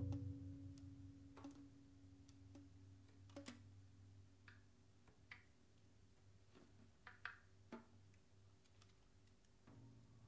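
Very quiet, sparse improvised playing by a piano, double bass, drums and soprano saxophone quartet: a low note struck just before rings and fades over the first few seconds, then scattered soft clicks and taps and a few short high notes.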